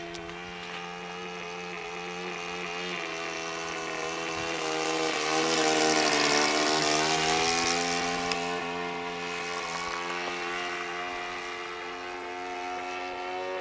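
Saito 14 four-stroke engine of a radio-controlled SE.5A biplane model running steadily in flight, growing louder as the plane passes close about halfway through, its pitch shifting as it goes by, then fading as it flies away.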